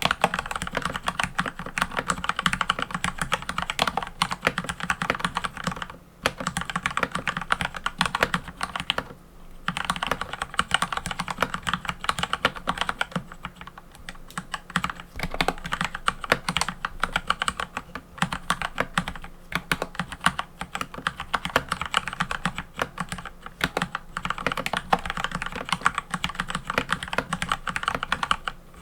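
Mechanical keyboard being typed on quickly: a dense run of key clicks and clacks, with a brief pause about nine seconds in.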